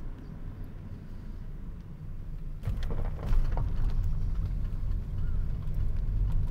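Low rumble of a car's tyres and engine heard from inside the cabin while driving. About three seconds in it grows louder and rougher, with a few sharp knocks, as the car rolls from asphalt onto a gravel road.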